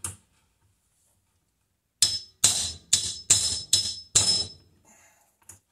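Six hammer blows in quick succession, about two a second, on a metal tool held against a 1979 Kawasaki KZ650 carburetor bank, each strike ringing metallically. They come about two seconds in, working at the throttle shaft set plate during teardown.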